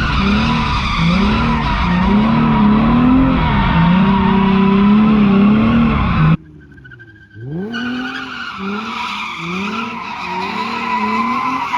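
Drift car sliding in donuts: the engine revs up and down about once a second while the tyres squeal steadily. About six seconds in the sound drops off abruptly for just over a second, then the revving and squealing pick up again.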